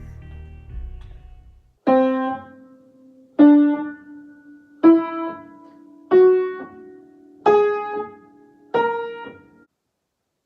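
Piano playing six single notes one at a time, about a second and a half apart, each a step higher than the last, in a slow rising scale that stops near the end.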